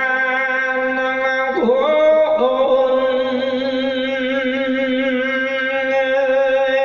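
Male voice singing an Isan-style thet lae sermon, holding a long drawn-out note with a wavering vibrato, the pitch dipping and sliding back up briefly about two seconds in.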